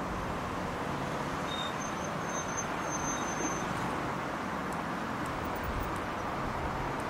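Steady traffic noise from cars passing on a town road.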